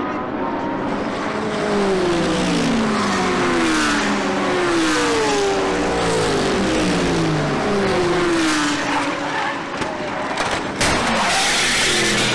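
GT race cars' engines at full speed, several engine notes falling in pitch one after another as the cars pass. About eleven seconds in there is a crash: a sharp bang and clatter, followed by a hiss of skidding tyres.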